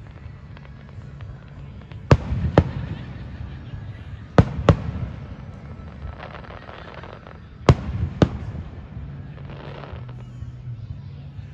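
Aerial fireworks shells bursting: three pairs of sharp bangs a few seconds apart, with crackling in between.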